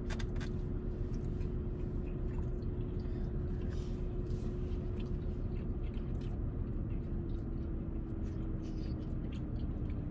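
A person chewing food, with small wet mouth clicks, over a steady low hum inside a vehicle cabin; the hum's tone dips slightly about seven seconds in.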